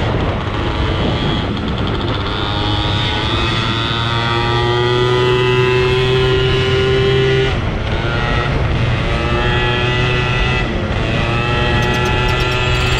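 Honda Dio two-stroke scooter engine running under way, with wind rushing over the microphone. About halfway through the engine note drops off, then it climbs and swings in pitch with the throttle through the bends.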